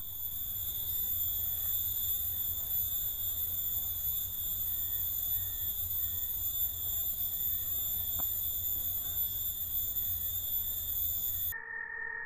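Steady, high-pitched drone of forest insects, with a low rumble underneath. Near the end the drone gives way abruptly to a lower-pitched steady buzz.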